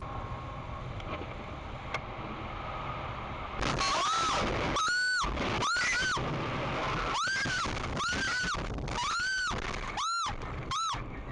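Dashcam audio inside a car skidding on a wet road: steady road and rain noise, then about three and a half seconds in a sudden louder rush of noise with a run of about seven high-pitched screams, each rising and falling in pitch, with short breaks between them.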